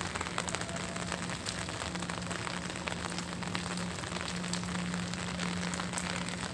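Heavy rain falling steadily: a dense, even hiss made of countless small drop hits.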